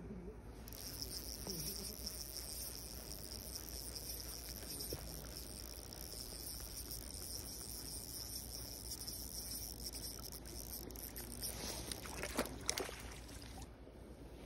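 Spinning reel buzzing steadily as a hooked trout is played and brought to the landing net, with a few sharp knocks near the end.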